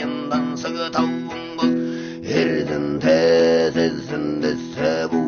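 A man singing while strumming a Mongolian long-necked lute (tovshuur) in a steady rhythm, the strings giving a constant low drone under the voice.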